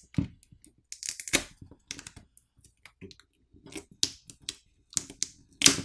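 Smartphone battery being pried and pulled out of its adhesive with a plastic pry tool and pull tab: irregular clicks, crackles and short scrapes, the loudest near the end.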